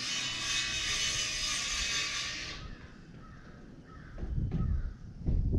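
Fishing reel being cranked, a fast mechanical whirr that stops after about two and a half seconds. Low rumbling follows near the end.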